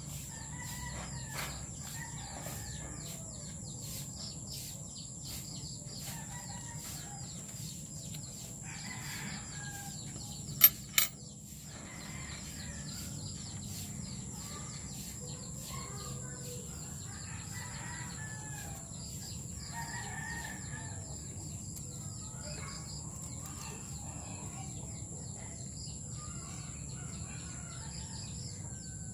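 Dry leaves and fur in a rabbit nest box rustling as hands part the nesting, with birds calling in the background and a steady high-pitched tone throughout. Two sharp clicks a little over ten seconds in are the loudest sounds.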